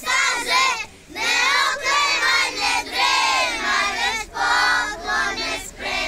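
A group of young schoolchildren singing a song together, loudly and in phrases broken by short pauses for breath.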